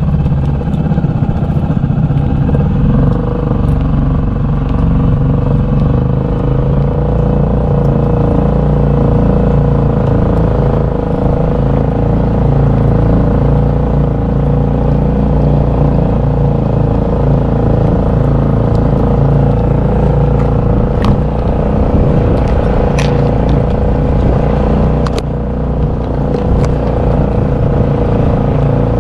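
A small engine running steadily at an even speed, with a few sharp clicks or knocks about three quarters of the way through.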